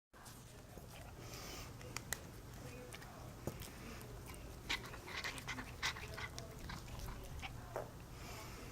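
A cat playing with a paracord string toy, biting and pawing at the cord: scattered sharp clicks and short scuffling rustles over a low steady hum, busiest about halfway through.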